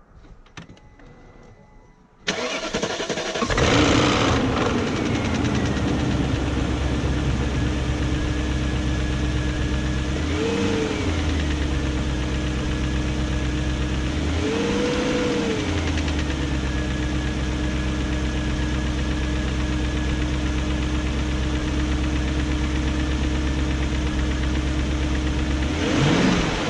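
BMW E38 740i's 4.4-litre M62 V8 cranking and catching about two seconds in, flaring briefly, then idling steadily, with three short rises and falls in revs. It is the first start after new timing chain guides and Vanos profile gaskets, run to hear whether the engine's ticking is gone.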